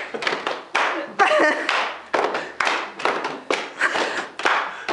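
Hands clapping in a rhythm, about two to three claps a second, each ringing briefly in a hard-floored room; a voice calls out briefly about a second in.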